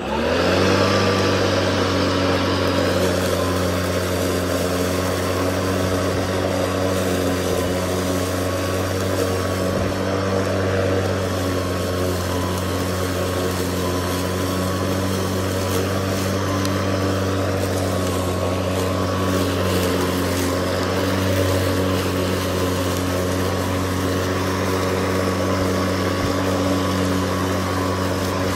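Greenworks 80V brushless battery lawn mower spinning up as its levers are pulled, then running steadily while mowing: a constant hum over the rushing blowing of the blade.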